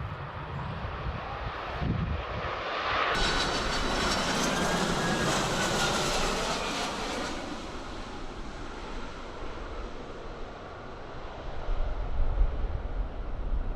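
Jet airliner's engines passing close by: the rush swells about three seconds in, peaks with a high hiss and a whine that slowly bends down in pitch, then fades away. Wind rumbles on the microphone near the end.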